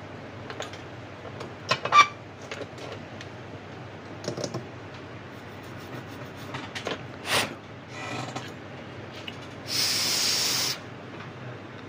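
Small metal tools and tweezers clicking and tapping against an opened phone and the repair bench, one sharp metallic clink about two seconds in. Near the end comes a loud hiss lasting about a second.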